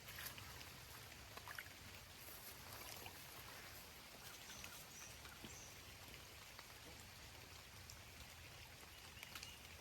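Faint running water of a small stream, a steady low trickle with a few light ticks.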